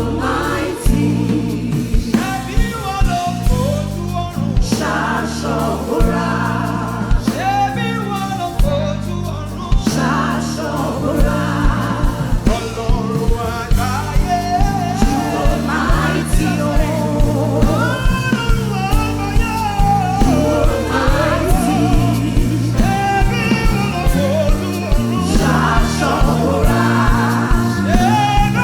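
Live gospel worship singing with band accompaniment: voices carrying the melody over bass notes and a steady drum beat.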